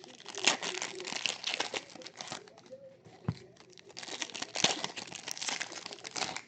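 Trading card box and pack wrappers being torn open and crumpled: crinkling and tearing in two bouts, with a short lull about halfway through.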